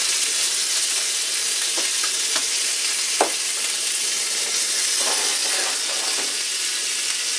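Bacon-wrapped steak frying in a small cast iron skillet: a steady sizzle, with a few faint clicks about two and three seconds in.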